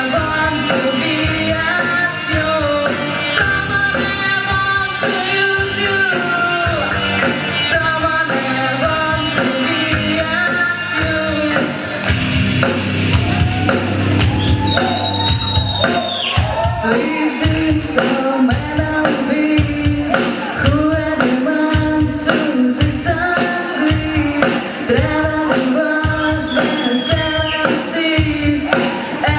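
Live band playing a rock song with a singer. A steady drum beat comes in about halfway through.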